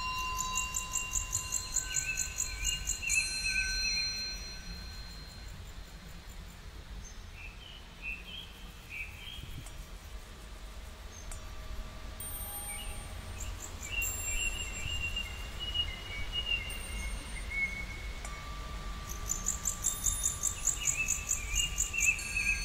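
Birds singing, with fast high trills near the start and end and warbling chirps in between, over quiet instrumental music of long held, chime-like notes.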